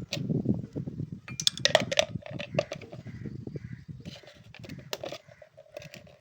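Metal hand tools and parts clinking and clattering in a quick run of sharp clicks and knocks. A few of the strikes ring briefly, and the clatter thins out near the end.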